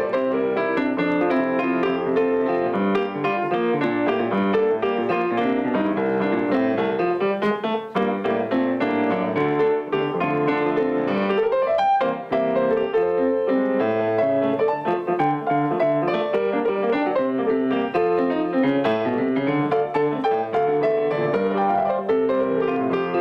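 Solo grand piano played with both hands: a continuous stream of notes and chords.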